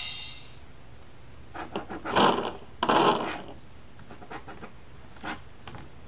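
Gloved hands brushing and sliding over the stiff cardboard pages of a board book: two loud swishes about two and three seconds in, then a few soft taps and rustles as a page is turned. The tail of a sound-button tune fades out at the very start.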